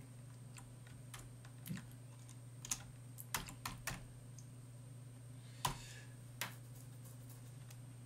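Slow, irregular keystrokes on a computer keyboard, scattered clicks a fraction of a second to a second or so apart, over a faint steady low hum.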